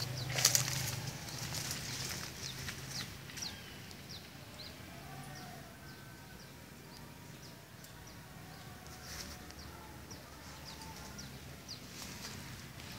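Quiet outdoor ambience with birds giving scattered short, high, falling chirps. A few rustles or footsteps near the start, and a faint low hum that comes and goes.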